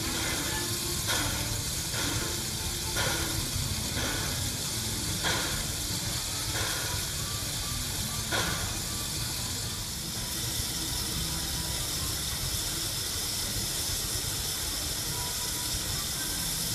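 Steam locomotive Roger E. Broggie standing and hissing steadily. In the first half comes a series of short beats about a second apart; they spread out and stop about eight seconds in.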